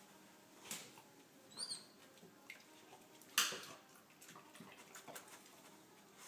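Faint scattered taps of a puppy's paws and claws on hardwood stairs, with one louder short sniff about three and a half seconds in as she noses at the step.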